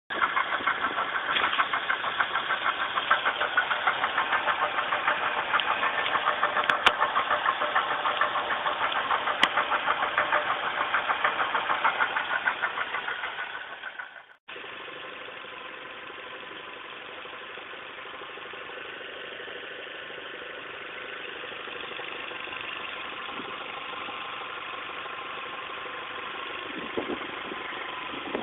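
Toyota 3S-GE inline-four engine running with an abnormal noise from a failing water pump, a loud, fast, even pulsing. About halfway through it cuts to the same engine running quieter and steadier with the water pump replaced.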